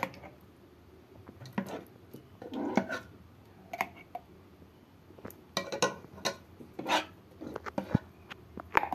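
Metal spoon clinking and scraping against a glass jar and a pot as thick apricot jam is spooned in: irregular taps and knocks.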